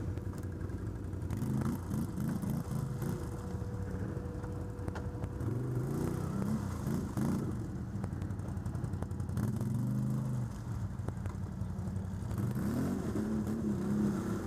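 ATV engine running and revving up and down in repeated surges, about four rising-and-falling sweeps over a steady engine hum.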